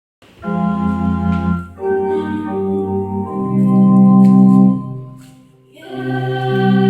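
Organ playing an instrumental introduction: held chords that change every second or so, die away about five seconds in, then a new chord comes in near the end.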